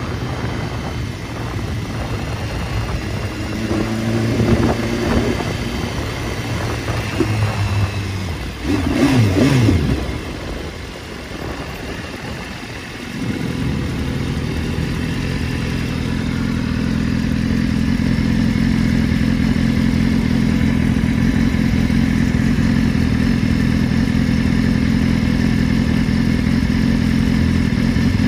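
Sport motorcycle engine heard from the saddle, revs rising and falling as it rides slowly, with a sharper rise and fall about nine seconds in. From about thirteen seconds in it settles into a steady, even idle.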